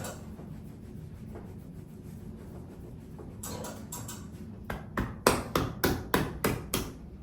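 Hands rubbing briskly over a client's body during manual therapy: a few soft scrapes, then, past the middle, a run of about eight quick rubbing strokes, about four a second.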